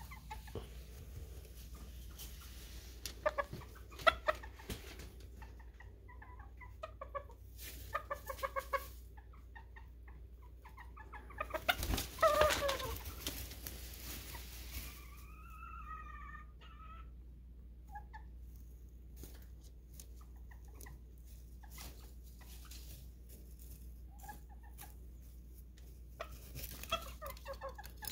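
Serama bantam chickens clucking in short bursts, with a louder squawk and rustling about twelve seconds in and a wavering call a few seconds after.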